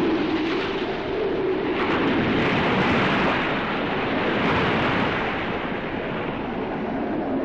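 Wind blowing off the sea: a loud, steady rush that swells and eases, with a faint low wavering howl near the start.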